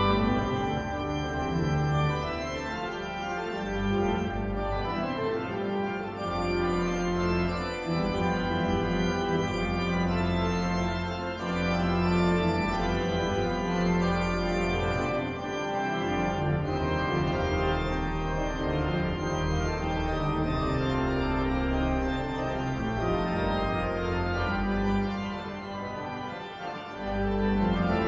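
Cathedral pipe organ playing a slow piece of held chords over low bass notes, the chords changing every second or two.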